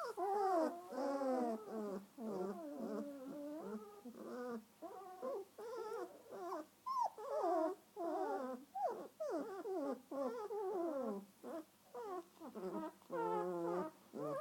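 Great Dane puppies whining and whimpering: a continuous run of short, high calls that slide up and down in pitch, some overlapping.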